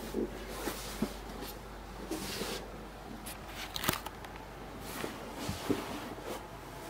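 Handling noise from a handheld camera being moved: scattered light clicks and knocks with brief rustling, the sharpest knock about four seconds in, over a faint steady low hum.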